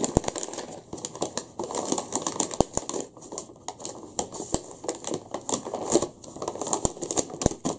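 Brown kraft-paper meal-kit bag being opened and handled: paper crinkling and rustling with many small crackles.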